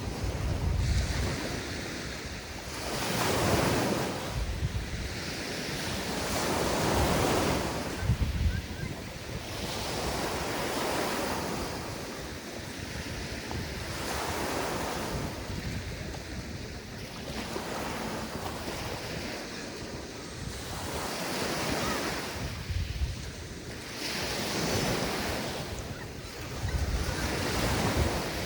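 Mediterranean Sea waves breaking and washing up the beach, the surf swelling and falling back every few seconds. Wind buffets the microphone in low rumbling gusts now and then.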